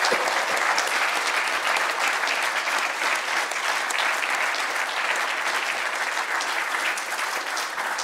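Lecture-hall audience applauding steadily: many people clapping at once, thinning slightly toward the end.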